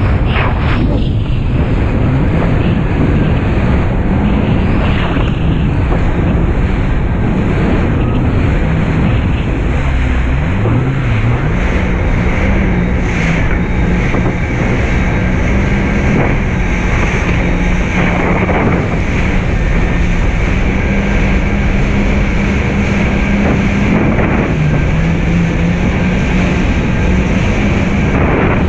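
Jet ski engine running steadily at speed, its note dipping about ten seconds in and climbing back up, with heavy wind buffeting the microphone and the hiss of water spray.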